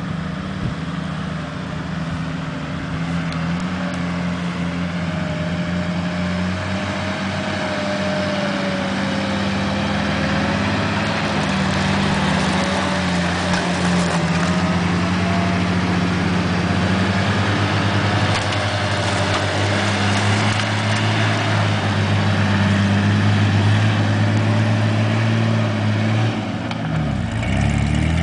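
Engines of 4x4 off-road SUVs running at low speed on a dirt track: a steady low engine drone that grows slowly louder, with a faint wavering whine above it.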